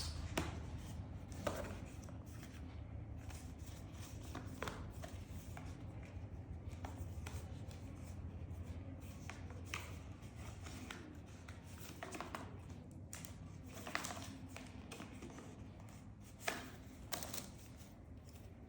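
Irregular clicks, taps and short rustles of phone cases and their packaging being handled, over a low steady hum. The sharpest clicks come about half a second in, near the middle and twice near the end.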